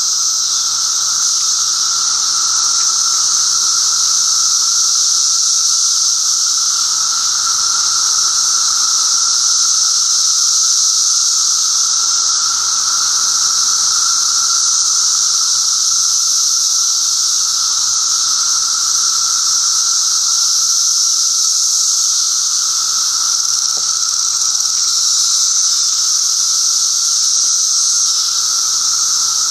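Mass chorus of Brood XIII seventeen-year periodical cicadas, males calling in the trees to attract mates. It is a loud, steady, unbroken high-pitched drone with a fainter, lower whine beneath it.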